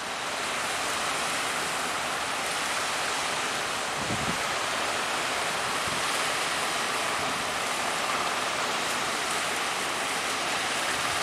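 Strong wind and sea surf making a steady rushing noise, with brief low wind buffets on the microphone about four and six seconds in.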